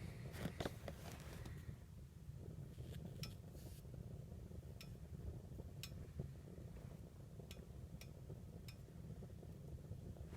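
Homemade waste-oil burner running hard, a steady low rumble from its burn cylinder and exhaust-pipe stack, with about seven sharp ticks scattered through it.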